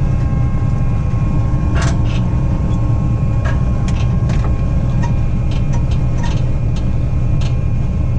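John Deere 9500 combine's diesel engine running steadily, heard from inside the cab as the combine backs up: a loud low rumble with faint steady whines, and a few light clicks and knocks.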